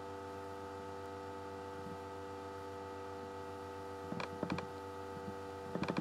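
Steady electrical mains hum with several constant tones, interrupted by two short clusters of clicks, about four seconds in and again near the end.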